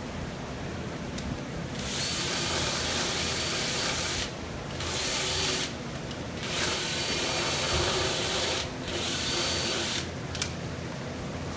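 Motorized equine dental tool running in the horse's mouth, grinding at its teeth in four runs of one to two seconds each with short pauses between, starting about two seconds in.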